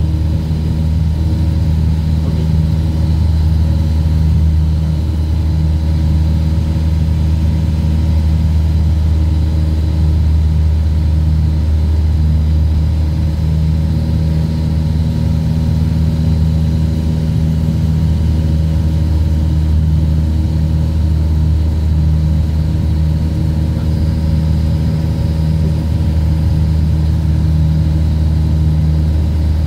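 Light aircraft's engine and propeller droning steadily in cruise, heard inside the cabin: a loud, low hum that holds one pitch throughout.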